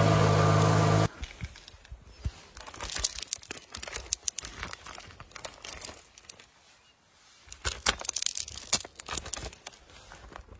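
Candy-coated chocolates and their plastic wrapping being crushed under a car tyre: scattered sharp crackles and crunches of cracking candy shells, with crinkling packaging. A loud low drone cuts off suddenly about a second in, and there is a short lull in the crackling past the middle.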